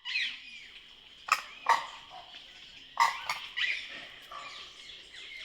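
A flock of birds calling at once: a steady chatter of short gliding calls, cut by loud sharp calls that come in two pairs, about a second and a half in and again about three seconds in.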